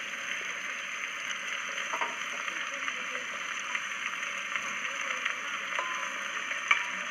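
Cut potatoes sizzling in hot oil in a pressure cooker, a steady frying hiss with a few light clicks.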